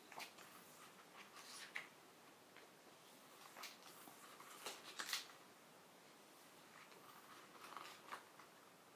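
Faint paper swishes and rustles as the pages of a glossy hardcover picture book are turned one after another, the loudest page flap about five seconds in.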